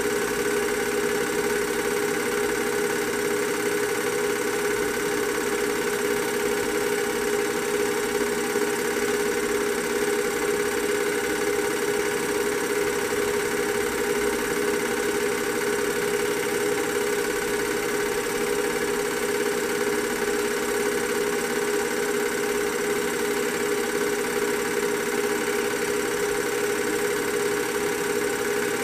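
Film projector running: a steady mechanical whirring drone with a constant hum, unchanging throughout.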